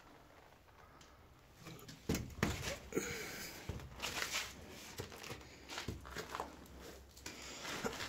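Footsteps scuffing and crunching on a debris-covered concrete floor, irregular and uneven, starting about two seconds in after a quiet start.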